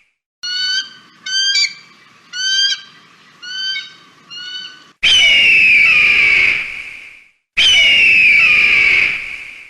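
Eagle calls: a run of five short, high, piping calls, then two loud, long screams that fall in pitch, each lasting a little over two seconds.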